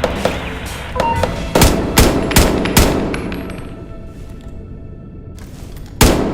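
AR-15 rifle firing: four quick shots about two and a half a second, then a single shot near the end, over background music.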